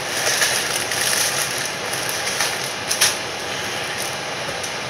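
Cardboard box and plastic pouch of scalloped potato mix rustling and crinkling as the box is opened and the pouch pulled out, over a steady hiss. A few sharp crackles, the loudest about three seconds in.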